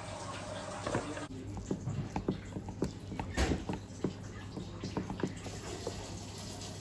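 Wooden chopsticks picking through grilled eel and rice in a lacquered unaju box: a string of small clicks and taps, starting after about a second, the strongest about three and a half seconds in.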